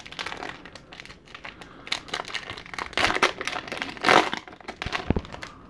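Foil-ended baseball card pack wrapper crinkling and tearing as it is pulled open by hand, in irregular crackles that are loudest about three and four seconds in.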